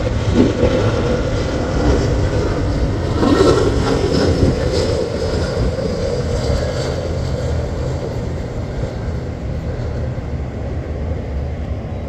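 Twin-engine jet airliner on landing approach, its engines a steady rumble and rush of noise. A faint high whine comes in a few seconds in, and the sound eases slightly toward the end.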